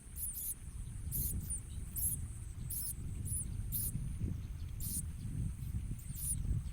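Prinia chicks (ciblek koya) giving short, very high, thin begging chirps, about one or two a second, over a low rumbling noise.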